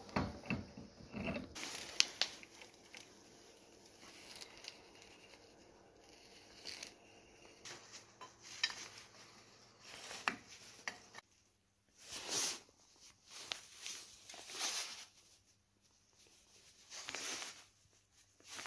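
Hand-handling of a Model T front wheel hub with an aluminium adapter plate as it is fitted onto the axle spindle: scattered metal clicks and knocks, then three or four scrapes of about half a second in the second half.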